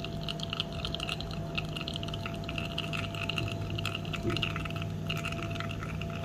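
Espresso machine pump humming steadily while a shot runs from a bottomless portafilter, the espresso stream trickling into a glass pitcher with a constant fine crackle.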